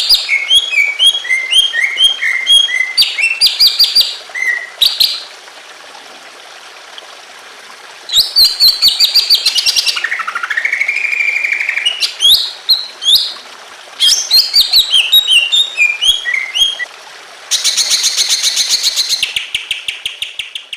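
A cucak ijo (green leafbird) singing: loud phrases of quick chirped notes, many sliding down in pitch, broken by pauses of a few seconds, with a lower rising whistle about halfway through and a fast, dense trill near the end. A steady trickle of water runs beneath the song.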